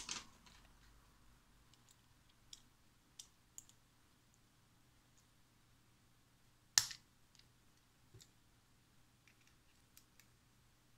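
Faint, scattered clicks and taps of a small screwdriver and metal parts being handled while screws are taken out of a resin 3D printer's metal build plate, with one louder sharp click about seven seconds in.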